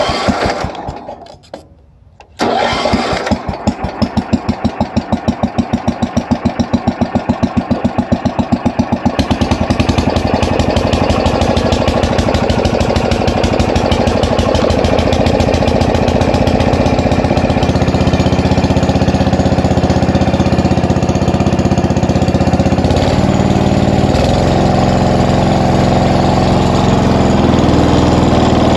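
Wheel Horse Commando 800 lawn tractor being started: the starter cranks the single-cylinder engine in quick, even pulses for several seconds until it catches about nine seconds in, then it runs on and settles into a steady run in the second half.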